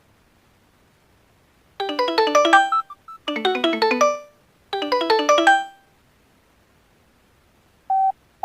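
An Alcatel OneTouch Retro flip phone's speaker plays a synthesized ringtone preview. About two seconds in come three quick runs of bright, chiming notes, each about a second long. Near the end there are two short beeps.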